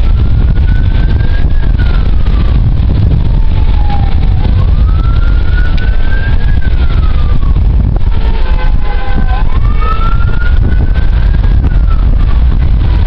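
An emergency vehicle siren wailing, slowly rising and falling about every five seconds. Loud wind rumble on the microphone runs underneath it.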